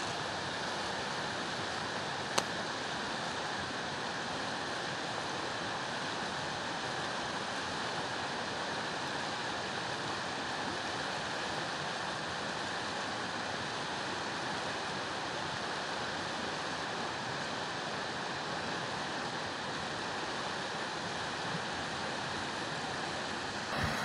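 Steady rush of a fast, shallow mountain river running over stones, with one short click a couple of seconds in.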